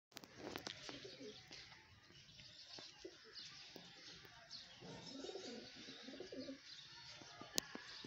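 Domestic pigeons cooing in two spells, near the start and again past the middle, with faint high chirps of other birds throughout. A single sharp click near the end.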